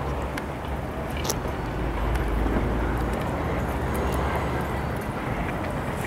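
Steady outdoor background noise: a low, fluctuating rumble with hiss, swelling a little in the middle, and a few faint clicks.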